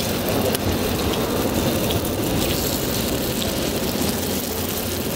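Steady wind rushing and rumbling on the microphone.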